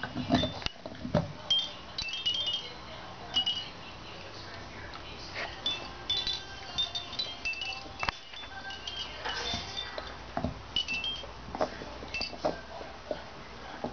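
Plastic rings and toys hanging from a puppy play mobile clinking and lightly chiming at irregular moments as puppies nose and tug at them.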